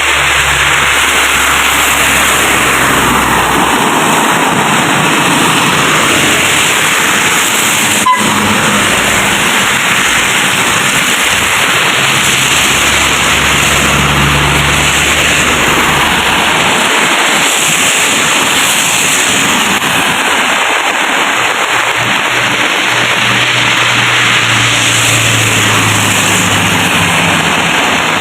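Heavy rain pouring down in a steady, loud rush, with a low hum coming and going underneath and a single sharp click about eight seconds in.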